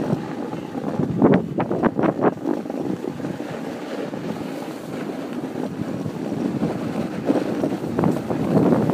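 Wind buffeting a phone microphone during a run down a snowy slope, with the rushing scrape of sliding over packed snow and a few sharp scrapes about a second in.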